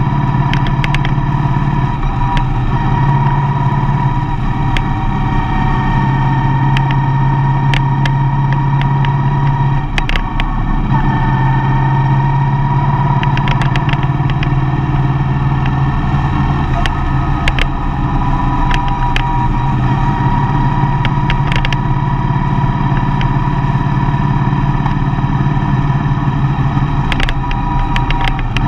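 Motor vehicle engine running steadily while driving along a road, with a brief dip and change in its note about ten seconds in and scattered sharp clicks over the drone.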